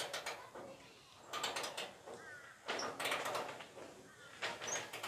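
Hand ratchet and socket clicking in about four short bursts as bolts on a car's body panels are turned.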